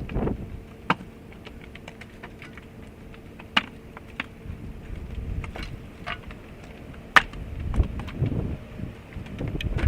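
Split firewood being unloaded and tossed onto a pile: irregular sharp wooden clacks and knocks as pieces strike one another, with a few duller thumps. A faint steady hum runs underneath.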